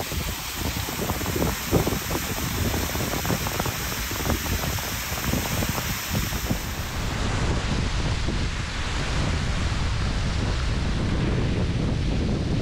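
Wind buffeting the microphone over a steady rushing noise, with irregular low thumps. About seven seconds in the sound changes abruptly to a smoother, steady rush.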